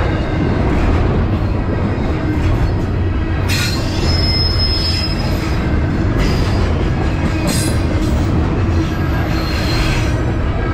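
Double-stack intermodal well cars rolling slowly past, a steady rumble of wheels on rail. A clank a little over three seconds in is followed by a brief high wheel squeal.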